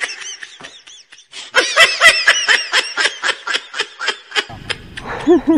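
A person laughing hard in a long run of quick, high-pitched bursts, about five a second, with a short break about a second in.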